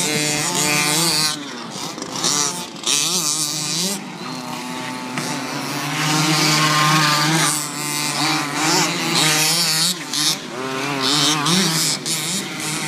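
Radio-controlled car's motor running and revving, its pitch rising and falling over and over, with short bursts of hiss.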